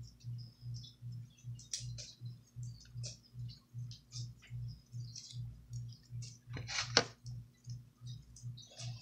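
Crunchy slime with kinetic rock mixed in being squeezed and worked by hand, giving scattered small clicks and crackles, the loudest about seven seconds in. Under it runs a low, even pulse about three times a second.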